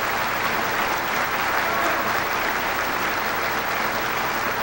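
Audience applauding steadily after a song.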